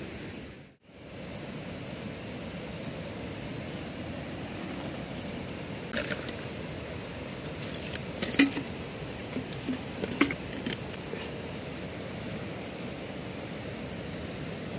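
Steady outdoor background hiss, with a handful of sharp clicks and light rattles from small things being handled close by, clustered about halfway through.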